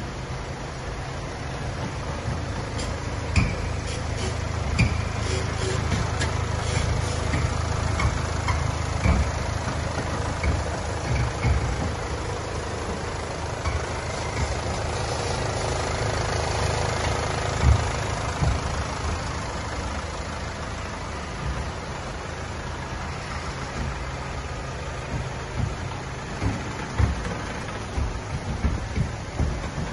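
Land Rover Discovery Sport's 2.0-litre TD4 four-cylinder turbodiesel idling steadily, with scattered light clicks.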